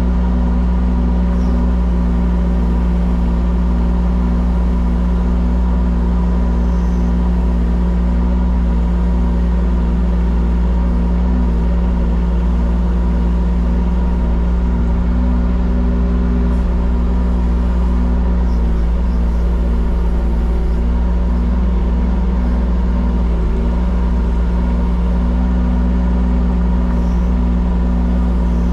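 Diesel engine of a piece of construction plant (excavator or telehandler) running at a steady speed: a loud, constant low drone that does not change.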